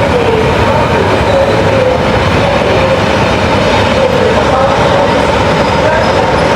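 A train running by at close range: a steady, loud rumble of wheels on rail with a faint wavering squeal above it.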